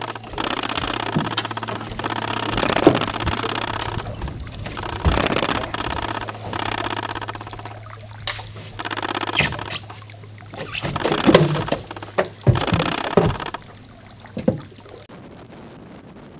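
Water splashing and sloshing, with several sharp knocks, as a bush-hook line is hauled in beside a boat, over a steady low motor hum that stops near the end.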